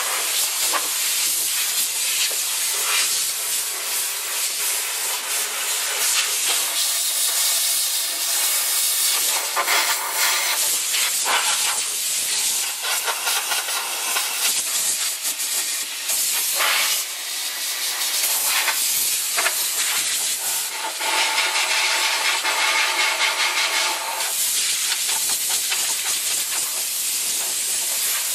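Compressed-air paint spray gun spraying primer: a steady rushing hiss of air and atomised paint that shifts in strength and tone several times as the gun is worked.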